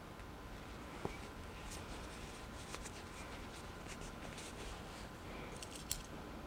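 Faint handling of layered fabric with scattered light clicks as straight pins are pushed through the lining and outer bag, over a low steady room hum.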